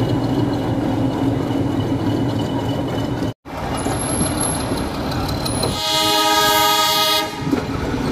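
Nilgiri Mountain Railway train running, with the steady rumble of the carriages. A little past the middle, the diesel locomotive's horn sounds once, for about a second and a half.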